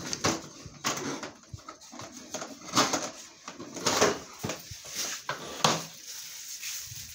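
Plastic wheeled ride-on toy being pushed and knocked about on a tiled floor: irregular scrapes and clatters, the loudest about three, four and five and a half seconds in.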